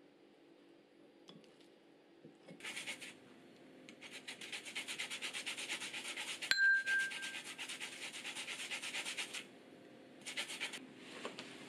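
Rhythmic scraping or rubbing strokes, several a second, in three spells, the longest lasting about five seconds. A single sharp metallic ding rings out in the middle of the long spell.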